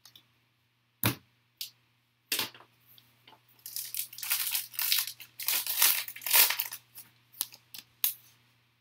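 A foil trading-card pack being torn open and crinkled by hand, a dense crackling rustle lasting about three seconds in the middle. A few sharp clicks and knocks come before it and a couple after.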